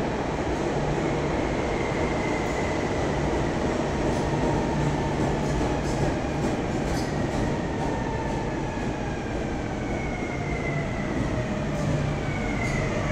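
Renfe Civia electric commuter train moving along an underground platform, slowing: a steady rumble of wheels and running gear under faint whining tones that slowly fall in pitch, dropping more steeply near the end.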